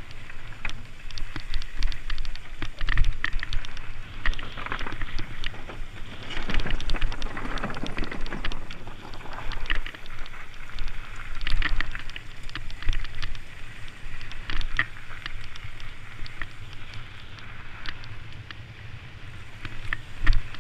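Trek Stache 7 mountain bike ridden over a rocky dirt trail: tyres crunching on dirt and stones, with frequent sharp clicks and rattles from the bike over bumps. Wind buffets the microphone in a constant low rumble.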